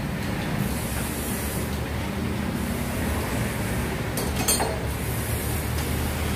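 Diesel injection pump calibration test bench running with a steady machine hum, and a brief hiss about four and a half seconds in.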